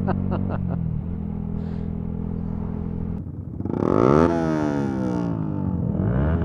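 Motorcycle engines on the road: a steady engine note, then about three and a half seconds in a bike revs up hard and goes by close, its pitch sweeping down as it passes, with another short rev near the end.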